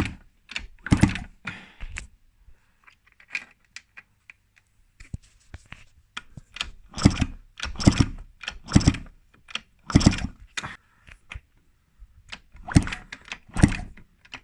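Yamaha YZ80 two-stroke engine being kicked over repeatedly to test the replacement stator for spark. It gives a series of short, sharp mechanical strokes: one about a second in, a quick run of four a few seconds later, and two more near the end.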